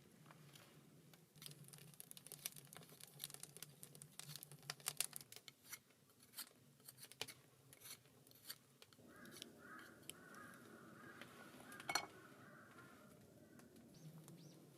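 Faint, irregular small clicks and crinkling handling noises, densest in the first half, with one sharper click near the end.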